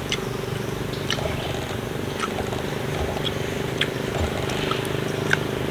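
A steady motor hum, with scattered short clicks and taps over it.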